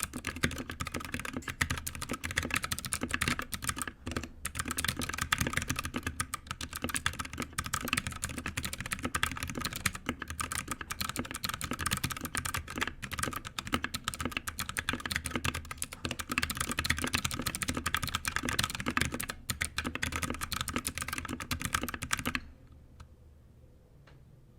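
Fast continuous typing on a 60% mechanical keyboard fitted with a mix of many different switches (linear, tactile and clicky), keystrokes clacking densely, stopping abruptly about two seconds before the end.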